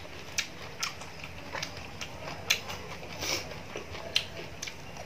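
Close-up chewing of crunchy food, with irregular sharp crunches about twice a second.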